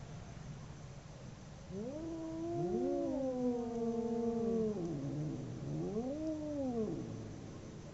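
Two cats yowling at each other in a fight standoff: drawn-out, overlapping wails that rise, hold and bend in pitch, starting about two seconds in, then a shorter rising-and-falling yowl near the end.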